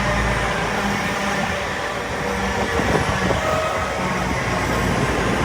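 Class 222 Meridian diesel multiple unit running into the platform: a steady, loud rumble from its underfloor diesel engines and wheels on the rails.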